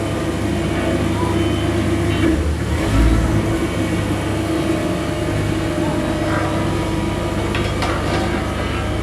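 Engine of heavy road-repair machinery running steadily, briefly revving up about three seconds in.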